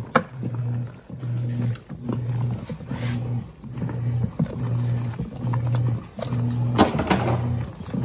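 Wanke Sally 5 kg semi-automatic washer agitating: its motor hums in short pulses, a little more than one a second, as the agitator reverses back and forth. Soapy water churns and sloshes in the tub, with a louder splash about seven seconds in.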